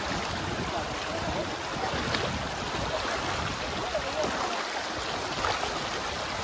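Shallow stream running over stones, with splashing as people wade through the water.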